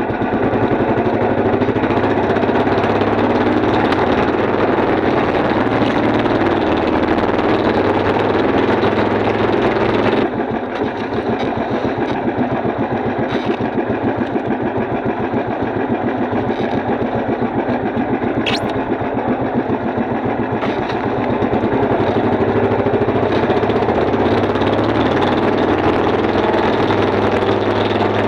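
Small boat engine running steadily, dipping slightly in level about ten seconds in. A brief high squeak sounds about two-thirds of the way through.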